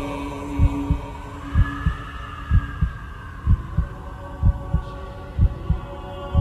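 Heartbeat sound effect: paired low thumps, about one pair a second, steady throughout. A held hum sits under it and fades out about halfway.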